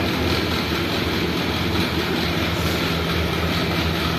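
Steady, even droning noise with a constant low hum underneath and no distinct knocks or clanks, like a running fan or ventilation drone.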